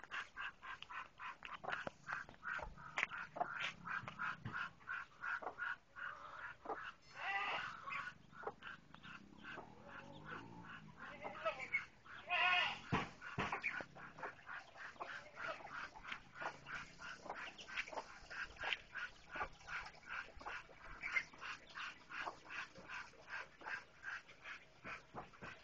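Muscovy ducklings peeping continuously, short high calls several times a second. A couple of louder, longer calls come from the birds about seven and twelve seconds in.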